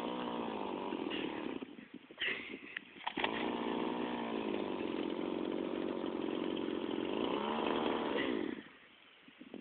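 An engine running unevenly. It cuts out a couple of seconds in, starts again about three seconds in, revs up near the end, then stops.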